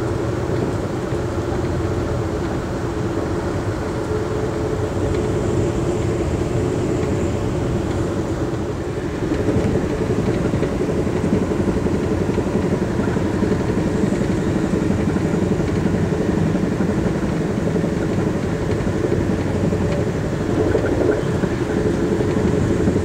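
Steady rumble of a passenger train coach running at speed, heard from inside the car: wheels on rails and car-body noise. It gets a little louder about nine seconds in.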